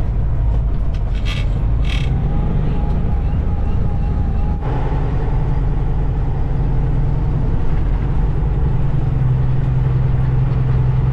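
Freightliner ProStar semi-truck driving, its engine and road noise making a steady low drone. Two short hisses come about one and two seconds in.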